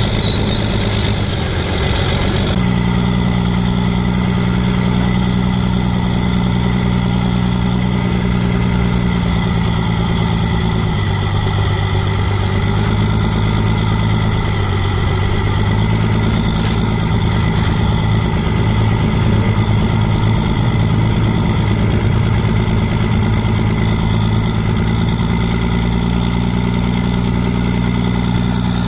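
Diesel truck engine idling steadily, its pitch shifting slightly a couple of times.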